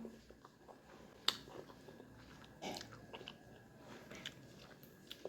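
Faint close-up mouth sounds of someone chewing a mouthful of food, with a sharp click about a second in.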